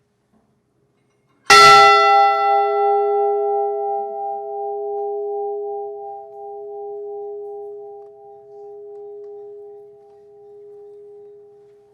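A large bell struck once about a second and a half in, then ringing on and slowly fading, its higher tones dying away first. It is a memorial toll for a crew member whose name has just been read.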